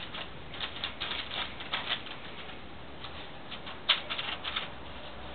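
Newspaper rustling and crinkling in irregular short bursts as Siberian husky puppies paw and tug at it, with one sharper crackle about four seconds in.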